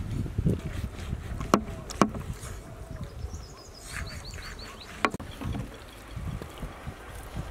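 A heavy knife cutting scores into a large whole fish on a metal tray, with a few sharp clicks as the blade meets the tray. A quick run of faint high chirps comes about four seconds in.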